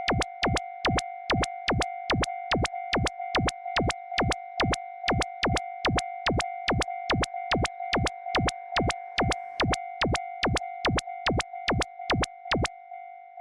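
Railroad crossing warning bell ringing steadily in its clanging rhythm. Over it comes a regular beat of loud, sharp knocks, about two and a half a second, which stops about a second before the end.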